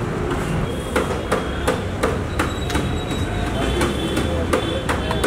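Plastic snap-on lids being pressed onto plastic food tubs one after another, a sharp click about three times a second from about a second in, over a steady low background rumble.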